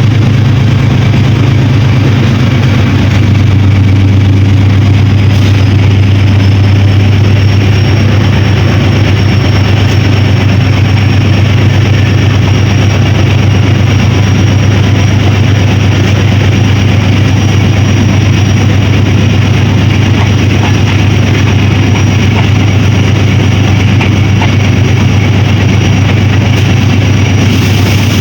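Diesel locomotive running loud and steady, with a deep drone under dense mechanical noise and a thin high whine that rises slightly about six seconds in, then holds.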